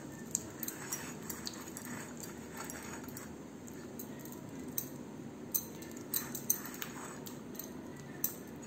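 Fingers rubbing butter around the inside of a glass cake dish, with about eight light, sharp clinks against the glass scattered through, over a low steady hum.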